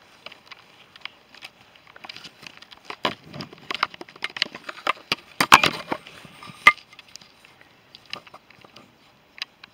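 Dry twigs and leaves rustling and snapping as someone brushes through a hedge: a run of close crackles, sparse at first, densest and loudest in the middle, thinning out near the end.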